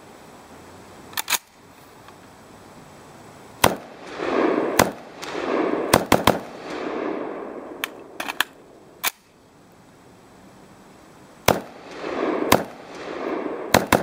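About a dozen single rifle shots from a short-barrelled Swiss Arms CQB carbine in 5.56×45mm, fired at an irregular pace, some in quick pairs or triples. Each shot is followed by a rolling echo.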